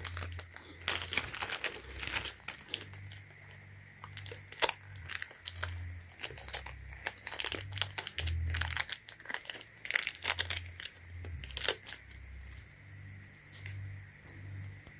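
Plastic packaging crinkling and rustling as it is handled and opened, in irregular bursts of sharp crackles and clicks with low bumps from handling.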